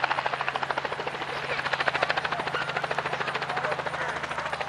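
Helicopter flying over, the rapid steady chop of its rotor blades growing louder toward the middle and then easing off.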